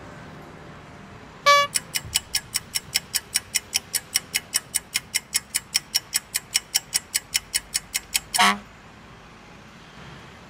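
Quick, even electronic ticking, roughly four to five ticks a second, lasting about seven seconds. It starts with a short tone and ends with a brief burst. It times the crossing's green phase, which lasts only about seven seconds.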